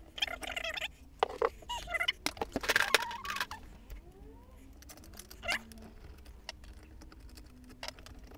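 Small metal tools and parts clattering and clicking as they are picked up and handled at a workbench, busy for the first few seconds and then only a few scattered clicks.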